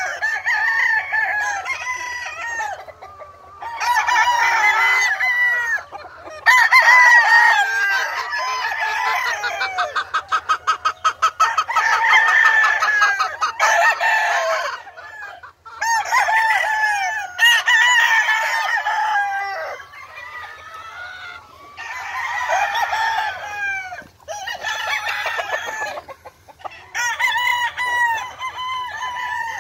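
Several gamecocks crowing one after another and over one another, with clucking between the crows. About a third of the way in there is a fast, evenly pulsed run of calls.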